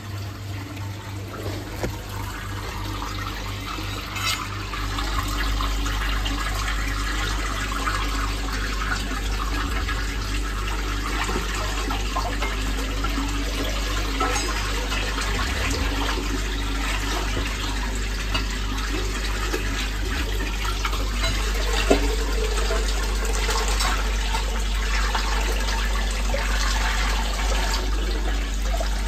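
Backed-up sewage water rushing through a manhole chamber and away down the drain as the blockage clears: a steady gush of flowing water. A low steady rumble joins in about five seconds in.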